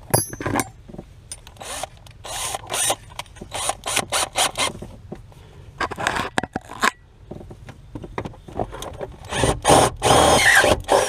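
Power drill boring a bolt hole through a car's sheet-metal firewall, running in short bursts with the bit scraping on the metal, the longest and loudest burst near the end.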